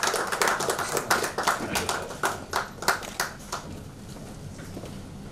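A small group of people applauding. The clapping thins to a few scattered claps and dies away about three and a half seconds in.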